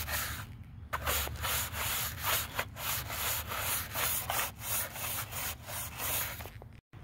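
Long-handled scrub brush scrubbing an old bamboo fence panel in quick back-and-forth strokes, about two or three a second, cleaning off mold and grime. The strokes pause briefly about half a second in and cut off suddenly just before the end.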